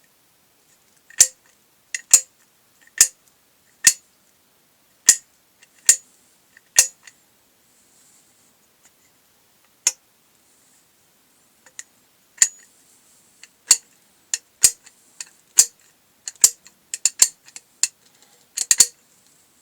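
Homemade ratchet unlocker hubs for a walk-behind tractor giving sharp metallic clicks with a short ring, about one a second at first. After a gap the clicks come faster and closer together near the end.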